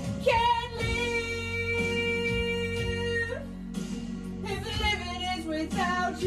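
Singing over guitar backing music: one long held note of about three seconds, then a run of shorter notes.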